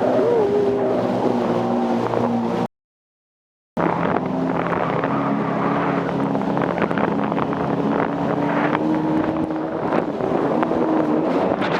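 Jet ski engine running at a fairly steady pitch, with wind buffeting the microphone. The sound cuts out completely for about a second near three seconds in, then the engine carries on.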